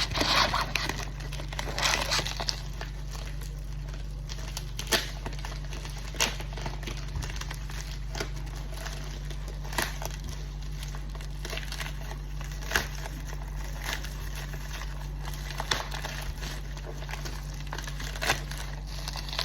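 Packaging crinkling as a mail package is opened, busiest in the first couple of seconds, then scattered light clicks and rustles as the contents are handled.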